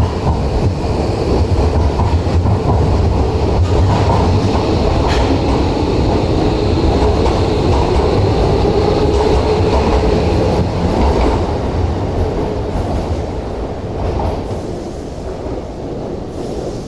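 Electric commuter train running along the platform, a steady rumble of wheels and motors that fades away over the last several seconds.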